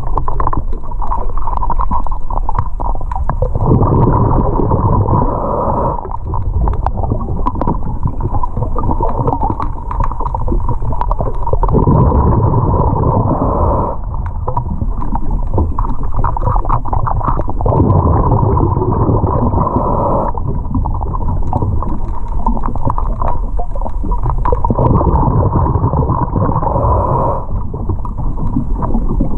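Underwater sound of a diver's breathing: a burst of low bubbling rumble comes roughly every six seconds and lasts two to three seconds, with scattered small clicks and knocks in between.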